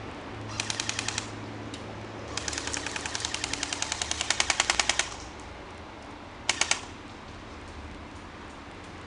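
Airsoft guns firing in rapid automatic bursts of sharp clicking shots, about a dozen a second: a short burst about half a second in, a long burst of about two and a half seconds starting around two and a half seconds in, and a brief burst about six and a half seconds in.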